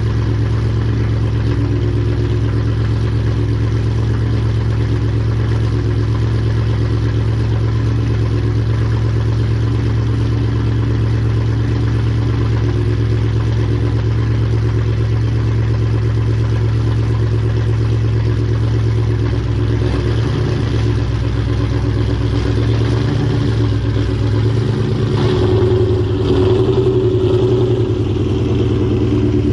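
Ford Mustang engine running through a Borla ATAK cat-back exhaust: a steady low drone that shifts in pitch and grows a little louder about 25 seconds in.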